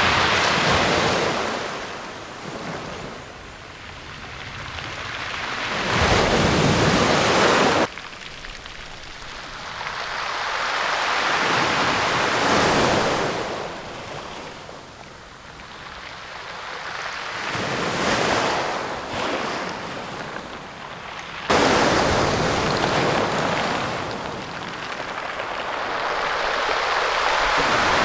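Small waves breaking on a shingle beach and drawing back, the backwash rattling the pebbles seaward, swelling and fading every few seconds. The shingle being sucked back is a sign the angler reads as the top of the tide.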